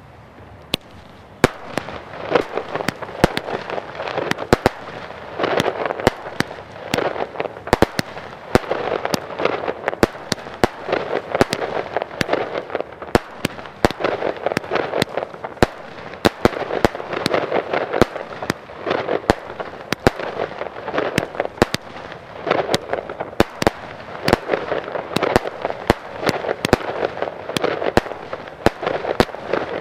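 Bonfireworks 'Blessing Pearls' 36-shot firework cake firing shot after shot: sharp launch reports and bursts come several times a second over a continuous noisy rush. The firing steps up about a second and a half in.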